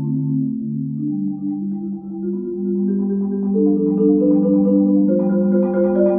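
Solo marimba played with four mallets: slow rolled chords, a low note holding while the upper voice climbs step by step, growing louder about halfway through.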